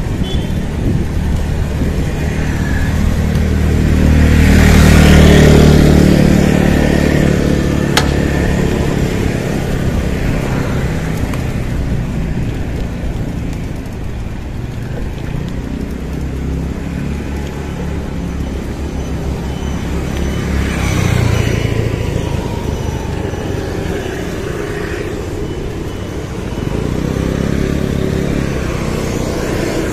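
Motor vehicles passing on a road, heard from a moving bicycle over a steady low rumble: one loud pass-by swells and fades about four to six seconds in, a weaker one about twenty-one seconds in. A single sharp click about eight seconds in.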